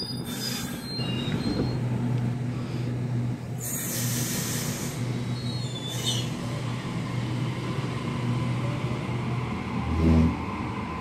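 Waratah double-deck electric train standing at the platform with a steady electrical hum, broken by three short bursts of air hissing. Near the end a whine rises in pitch as the train starts to pull away, with a low thump about ten seconds in.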